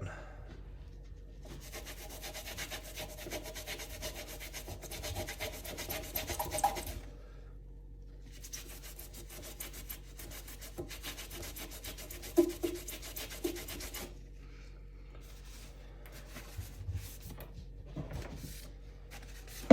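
Sponge loaded with Bar Keepers Friend powder scrubbed hard against a steel knife blade with barely any water: fast, even back-and-forth rubbing strokes in two long runs with a short pause between, then a few light knocks near the end.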